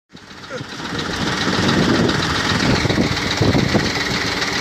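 Heavy diesel engine of a mobile crane running steadily under load while lifting, the sound fading in over the first second.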